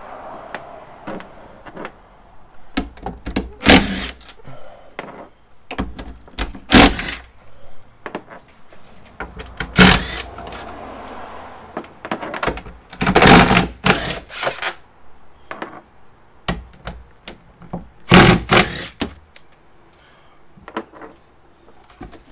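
Cordless impact driver run in about five short bursts, backing out the 13 mm bolts that hold a spare-tire carrier. Lighter clicks and knocks come between the bursts.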